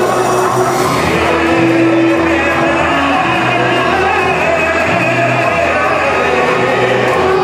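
A man singing into a handheld microphone over recorded backing music with a bass line, amplified through a sound system. About a second and a half in he holds one note for about a second.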